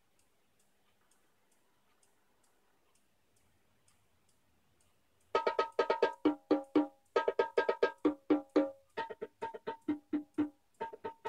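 Vinyl record playing on an Aiwa LX-11 turntable: a quiet stretch with faint, evenly spaced ticks, then about five seconds in the music starts, a fast run of sharply struck pitched notes.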